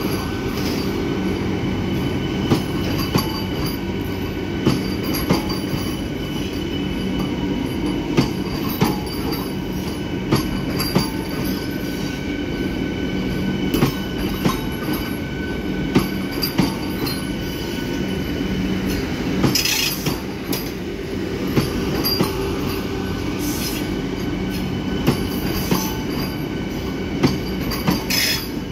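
Vande Bharat Express electric multiple unit rolling past as it pulls out: a steady rumble of wheels on rail with faint steady whining tones and sharp clicks as the wheels cross rail joints. A brief hiss comes about twenty seconds in.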